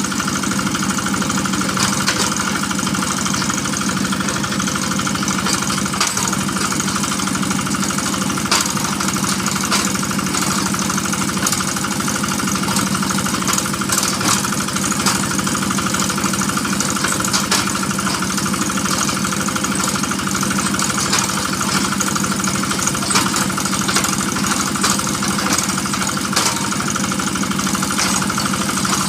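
Engine of a water-well drilling machine running steadily, with scattered sharp knocks.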